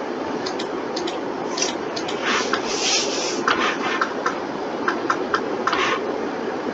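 Scattered computer keyboard and mouse clicks, some single and some in quick runs, over a steady background hiss.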